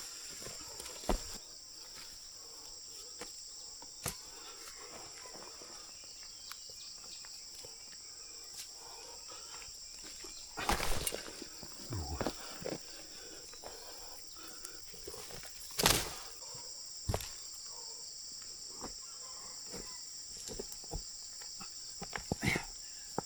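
Insects droning steadily, with scattered thuds and rustling from cassava plants being dug out of the soil. The loudest knocks come a little under halfway and about two-thirds in.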